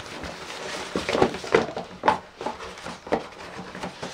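Cardboard packaging rustling and scraping as a small box is worked open by hand, with several sharp clicks and knocks in the middle.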